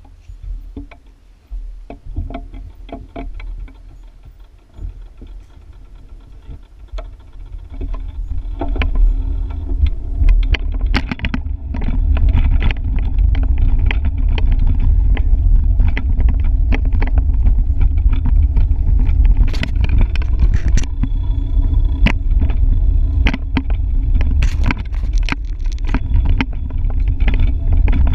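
Wind rumbling on the microphone of a bicycle-mounted camera, building up about eight seconds in as the bike gathers speed and then staying steady. Frequent light clicks and rattles from the bike riding over the road.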